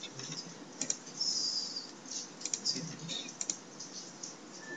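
Typing on a computer keyboard and clicking a mouse: scattered, irregular sharp taps and clicks.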